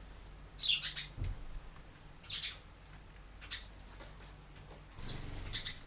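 House sparrows chirping in four short bursts, the first, about half a second in, the loudest. A soft low thump comes just after it.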